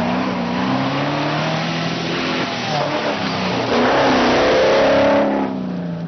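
Off-road safari buggy's engine revving hard through mud, its note rising and falling again and again. It is loudest as the buggy passes close by, about four seconds in, then drops away.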